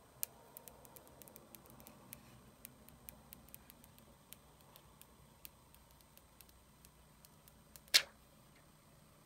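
Light, irregular clicks and taps, several a second at first and then sparser, with one much sharper click about eight seconds in.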